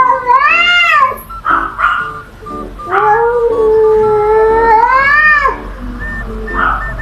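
Cat caterwauling: long, drawn-out yowls that rise and fall in pitch, one ending about a second in and a longer one running from about three seconds in to five and a half seconds in, typical of rival cats in a standoff. Background music plays throughout.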